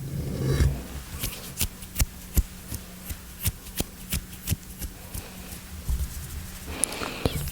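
Close-miked ASMR mouth sounds: irregular wet clicks and smacks, about one or two a second, with a softer rustling sound at the start and again near the end.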